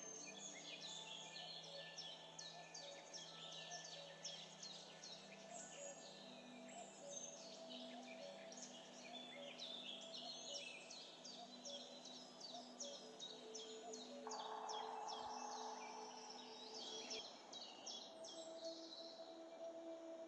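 Quiet background music of soft held tones, with many small bird chirps throughout.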